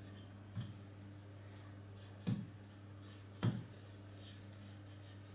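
Wooden rolling pin knocking three times on a granite countertop while rolling out pie dough, the last two knocks the loudest, over a steady low hum.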